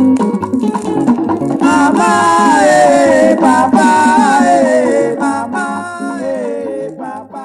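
Nigerian highlife band music from a 1979 vinyl LP: percussion keeps a steady beat under a sliding melodic lead line, and the music fades out over the last couple of seconds as the track ends.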